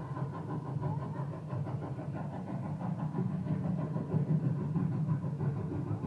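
Steampunk locomotive sculpture's train sound effects playing: a steady low engine-like rumble with a fast, even pulse.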